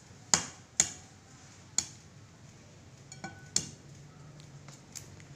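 An egg being knocked against the rim of a ceramic plate to crack its shell: sharp taps, four loud ones in the first four seconds and a couple of softer ones after.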